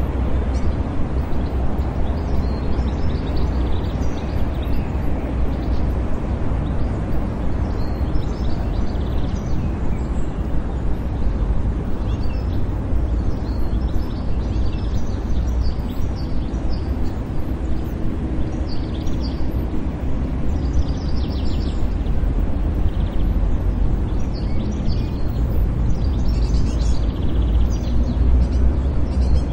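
City park ambience: a steady low rumble of distant traffic with small birds chirping on and off throughout.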